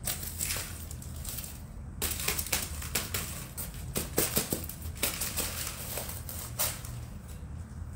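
Thin plastic plant pot crackling and clicking as it is squeezed and flexed to loosen the root ball, with loose potting soil spilling and pattering onto the table as the pot is tipped. The crackling is densest in the middle of the stretch.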